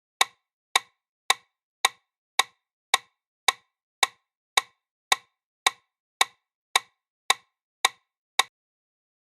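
A steady metronome-like click track: sixteen identical sharp ticks, evenly spaced at about 110 a minute, with dead silence between them.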